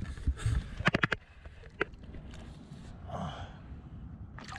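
A bass being released by hand over the side of a metal boat: a few sharp knocks and clicks in the first second or so as the angler leans over the gunwale, then faint swishing water as the fish is held in the river. A louder splash starts right at the end as the fish is let go.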